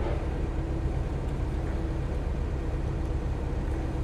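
Diesel engine of heavy logging machinery idling steadily, an even low hum.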